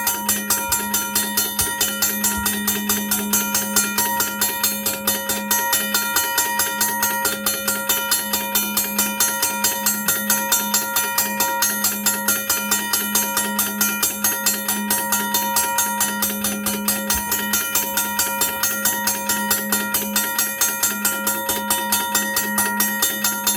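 A 2003 second-generation Safetran mechanical railroad crossing bell ringing without a break: its hammer strikes the gong at an even, rapid rate of about three to four strikes a second, and the gong's tones ring on between strikes.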